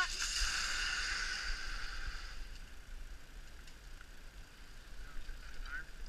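Zipline trolley running along the steel cable as a rider sets off, its whir fading away over about two seconds.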